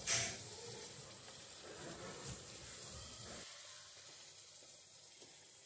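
Chicken and ground spice paste frying in oil in a pan over high flame: a faint, steady sizzle that grows quieter about three and a half seconds in.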